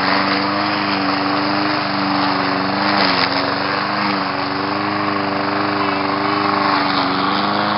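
Small pull-start gasoline engine of a walk-behind lawn mower running steadily, its pitch wavering slightly.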